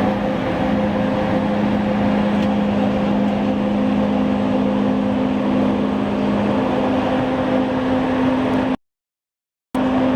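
Six-colour stack-type flexographic printing press running: a steady mechanical whir with a low hum. The sound cuts out to silence for about a second near the end, then resumes.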